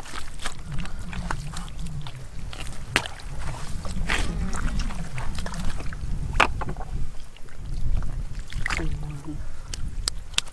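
Hands splashing and sloshing through shallow muddy water in a drying rice field, with scattered sharp splashes and slaps as the mud is searched for fish.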